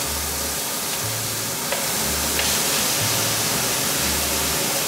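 Minced onion and garlic sizzling in hot oil in a frying pan as they are stirred with a spoon: a steady hiss with a few small clicks, over background music with a slow bass line.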